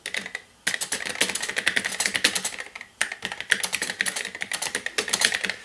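Fast typing on the keyboard of a 1982 Epson HX-20 portable computer: a dense run of key clicks with a short break about three seconds in.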